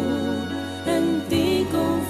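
A devotional song playing: a wavering, vibrato melody over sustained low accompaniment notes, the low note changing about a second and a half in.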